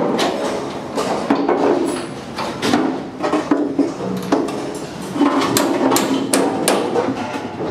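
A hammer striking aluminium formwork overhead: repeated sharp metallic knocks at irregular intervals.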